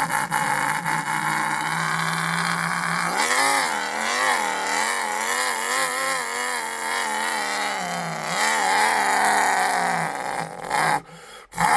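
A man's voice imitating a diesel pulling truck's engine under load at a truck pull: a steady rasping drone, a wavering rise and fall in pitch through the middle, then steady again until it cuts off suddenly about eleven seconds in, imitating the truck stalling.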